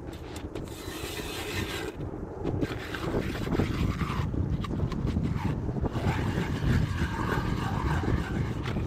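Ice auger boring a hole through thick lake ice: a continuous grinding scrape that grows louder about three seconds in.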